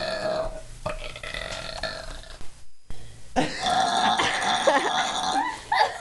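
Two long, drawn-out belches from a boy in a burping contest. The first runs about two and a half seconds. After a short break comes a second, louder one of about two seconds.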